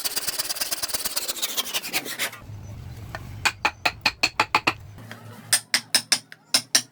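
Hand carving tools working wood: rapid rasping strokes for the first two seconds or so, then runs of quick, sharp taps, several to the second.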